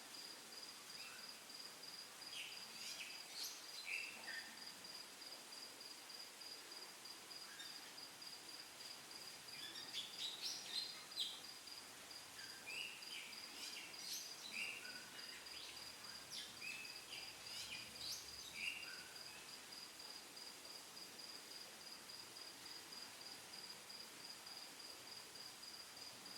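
A cricket chirps steadily in a fast, even high-pitched pulse throughout, faint in the background. Scattered short bird chirps come and go in the first two-thirds.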